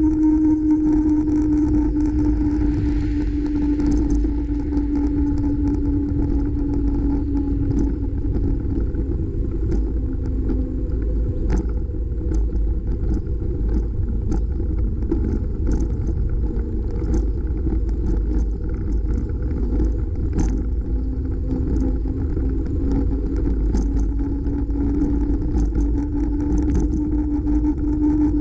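Bicycle riding along a paved road, heard from a camera on the bike: heavy wind rumble on the microphone over a steady hum from the moving bike. The hum sinks in pitch through the middle and rises again near the end, with scattered sharp ticks from bumps.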